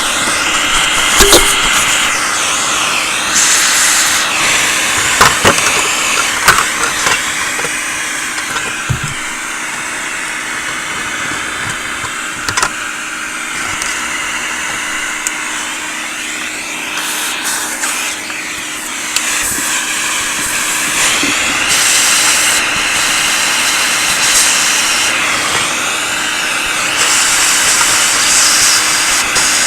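Small vacuum cleaner running continuously as dust is cleaned from a vintage radio's push-button assembly; its airy rush shifts in pitch as the nozzle moves. A few sharp knocks come in the first half.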